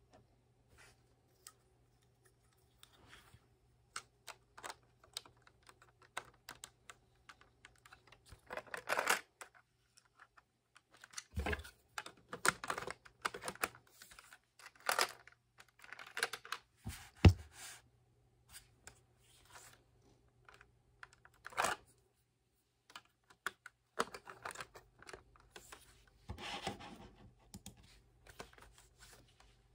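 Plastic Lego bricks of a sawn-off Lee-Enfield rifle model clicking and rattling as it is handled. Scattered light clicks with several clusters of louder clacks, the loudest about 17 seconds in.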